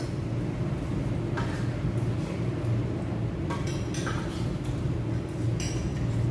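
Clinks of dishes and cutlery on a table, a few short knocks over a few seconds, over a steady low hum of restaurant room tone.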